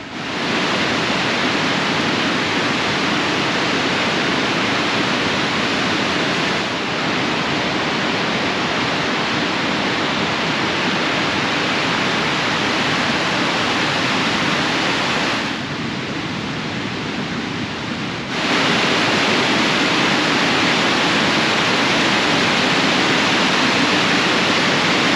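The River Ure rushing over Aysgarth Falls, swollen with recent rain and flowing high, a loud steady rush of water. It briefly turns softer and duller about two-thirds of the way through, then returns to full strength.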